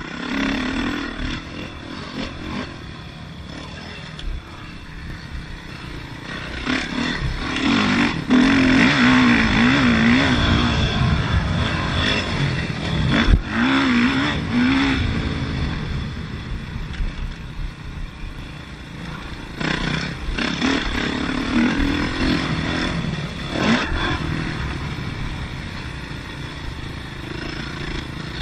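2005 Yamaha YZ450F's single-cylinder four-stroke engine heard from on board while riding a motocross track, revving up and down as the throttle is worked, loudest about eight to eleven seconds in. A few sharp knocks come through, about 8, 13 and 24 seconds in.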